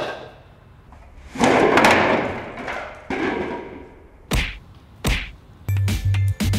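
A long rustling swish, then two dull thuds about a second apart; background music with a thumping bass beat starts near the end.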